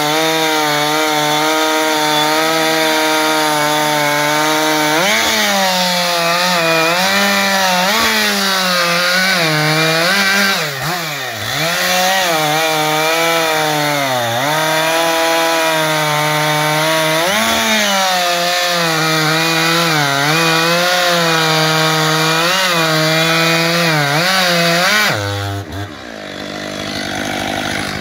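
Stihl MS 500i fuel-injected two-stroke chainsaw at full throttle cutting through a log, its pitch sagging and recovering over and over as the chain bites in under load. Near the end it drops to idle, then revs back up.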